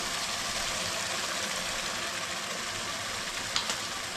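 Food frying in hot oil in a pan: a steady sizzle, with a light click about three and a half seconds in.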